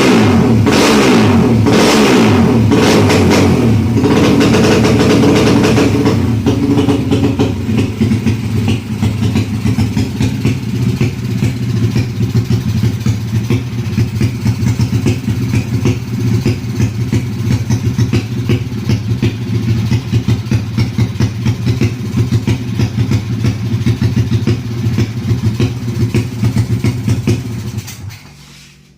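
Honda Kharisma motorcycle engine, a single-cylinder four-stroke bored out to 200cc for drag racing, running on its first start and not yet tuned. It is revved in short blips for the first several seconds, then settles into a pulsing idle and is shut off near the end.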